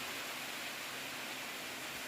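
Steady, even rushing noise of water.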